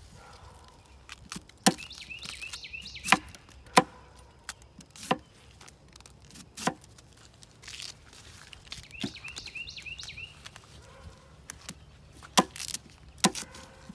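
A knife chopping into fresh bamboo shoots on a wooden log: sharp, irregular strikes a second or more apart, about seven in all.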